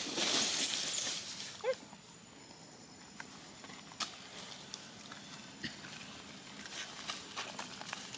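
Long-tailed macaques calling while a mother handles her baby on the ground: a harsh, noisy cry in the first second, then a short squeak. Faint rustling and clicks follow.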